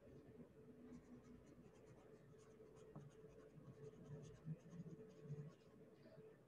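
Faint pencil scratching on paper: handwriting in short strokes.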